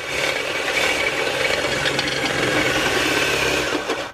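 Ryobi cordless drill running under load, its bit cutting into the steel collector of an exhaust header. The drilling stops just before the end.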